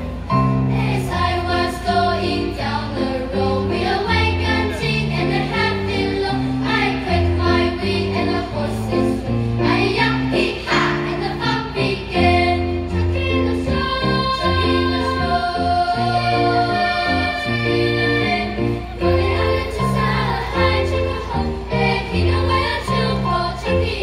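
Children's choir singing in harmony, with held notes, over an instrumental accompaniment carrying steady bass notes.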